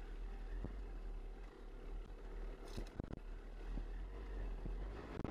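Yamaha YZ250 two-stroke dirt bike running along a rough trail, with wind on the microphone and scattered knocks from the bike going over bumps.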